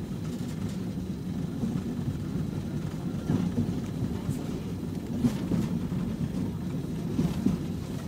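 Tram running along its track, heard from inside the car: a steady low rumble with a few light knocks.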